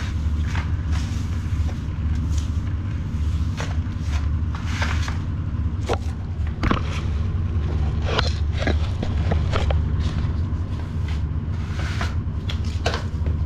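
Scraping and knocking of tools at the old toilet's sewer outlet fitting, irregular short strokes over a steady low rumble.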